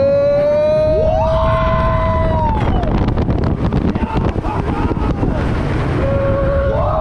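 Riders screaming in long held yells as a Rocky Mountain Construction hybrid roller coaster train drops and races along the track; two yells overlap about a second in, and a new one starts near the end. Underneath runs heavy wind rush on the microphone and the low rumble of the train on the rails.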